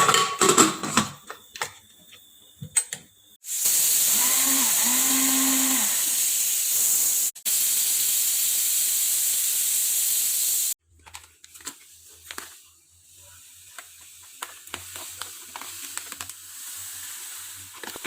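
Steam hissing loudly and steadily in two stretches of a few seconds each, split by a short break. Softer clicks and knocks come before it, and clicks over a low hum follow.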